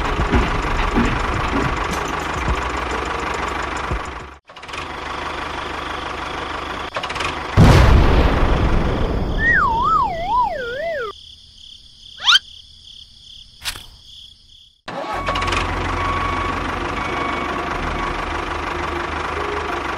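Toy tractor engine sound effect running, cut by a loud thud about eight seconds in, then a wobbling cartoon tone falling in pitch and a quick rising whistle. The engine sound comes back for the last five seconds.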